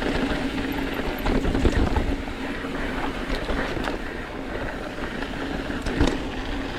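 Mountain bike rolling down a dirt trail: continuous tyre and drivetrain noise with a steady hum, wind buffeting the microphone, and sharp knocks from bumps, the loudest about six seconds in.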